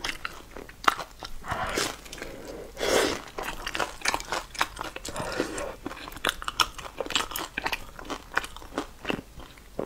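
Close-miked biting and chewing of a sauce-soaked piece of fried, breaded meat: crunching and crackling of the coating, with a louder crunch about three seconds in.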